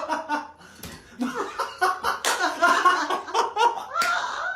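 People laughing, with a few sharp knocks or slaps among the laughter.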